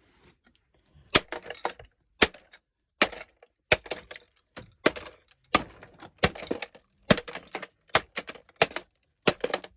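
Hammer blows smashing the plastic body of a cheap corded stick vacuum: a steady run of sharp cracking hits, roughly one every three-quarters of a second, starting about a second in.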